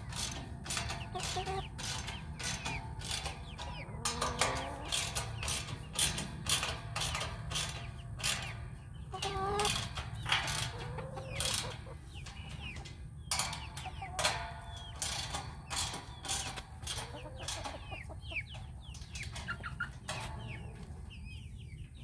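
Ratchet wrench clicking in quick strokes as the half-inch nut on a steel gate-latch bolt is tightened, with chickens clucking.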